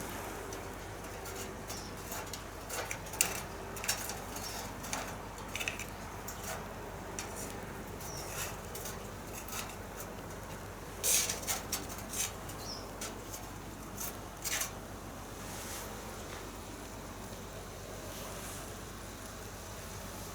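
Campfire crackling: irregular sharp pops and snaps over a faint steady hiss, most frequent between about 3 and 15 seconds in.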